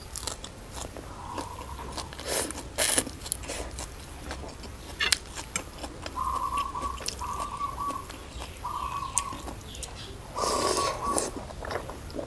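Close-up eating sounds: bites and crunching of raw banana blossom, then chewing, and a slurp of rice noodles near the end. A short tone repeats several times in the background.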